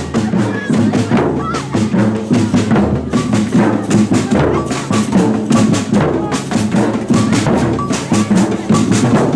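Batucada drum group playing a steady samba groove: deep bass drums pounding under dense, rapid strokes of higher drums.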